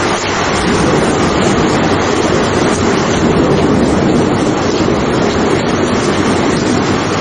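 Steady, dense rain: an even hiss with no single drops or other events standing out.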